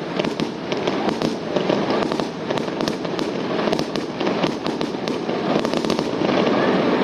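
Fireworks going off: many sharp pops and crackles in quick succession over a continuous dense noise.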